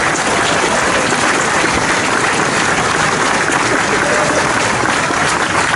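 Large crowd applauding steadily, a dense even clapping.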